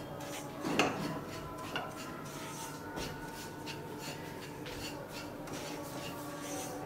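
Silicone spatula stirring semolina as it roasts in a little ghee in a nonstick kadai: a soft, repeated scraping and rustling of the grains against the pan. One stroke a little under a second in is louder than the rest.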